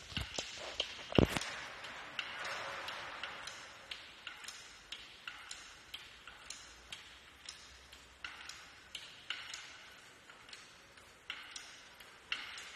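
Hand-pumped hydraulic lift of a tyre support device raising a wheel, clicking regularly about twice a second as its handle is worked, with one louder metal knock about a second in.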